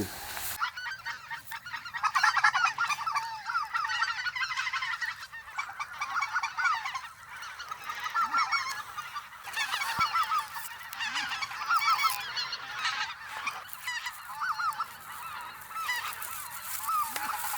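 Specklebelly goose (greater white-fronted goose) calls: many short, high, overlapping yelps that rise and fall in pitch, keeping up almost without a break.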